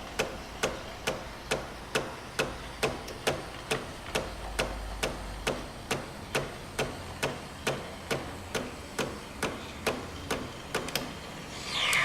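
A 3-in-1 capsule coffee maker running in steam mode, clicking steadily a little over twice a second as it pulses to make steam for frothing milk. A short rush of noise comes right at the end.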